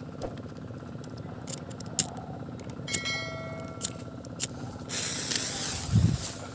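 A disposable lighter being struck again and again at a firecracker fuse: several sharp clicks spaced about half a second to a second apart. About five seconds in the fuse catches and hisses, with a low thump near the end.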